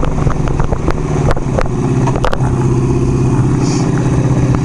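Engine of a 1975 Kawasaki KZ400 café racer, a parallel twin, running steadily as the bike rides along. About halfway through there is a short break in the note, after which the engine holds a steady, fuller hum.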